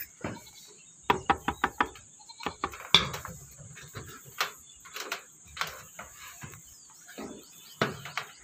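Sharp knocks and taps on corrugated metal roof sheeting: a quick run of them about a second in, one loud knock near three seconds, then scattered single ones. Under them runs a steady high hiss.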